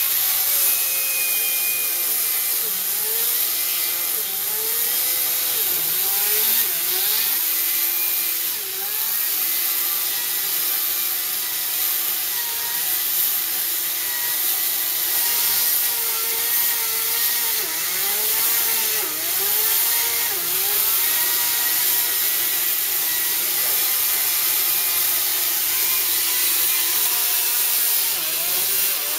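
Ryobi 40-volt cordless 14-inch electric chainsaw cutting through the dry trunk of a dead peach tree. It runs continuously under load, with the motor's pitch repeatedly sagging and recovering as the chain bites into the wood, over a steady rasp of chain on wood.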